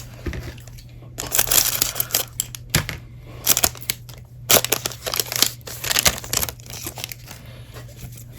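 Trading cards and their foil packaging being handled: several bursts of crinkling and rustling, over a steady low hum.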